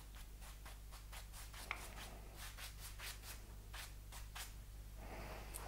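Faint, soft swishes of a French polishing rubber, a cloth pad charged with shellac, being wiped in repeated quick strokes across a shellac-finished wooden tabletop.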